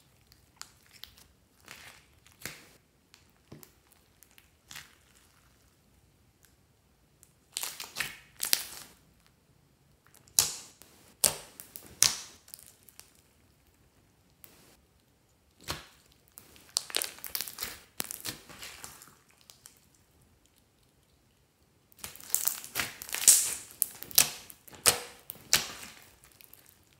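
Clear glitter slime with small foam beads being squished, stretched and pressed by hand, giving crackling, clicking and popping in bursts separated by short quiet spells, the busiest stretch near the end.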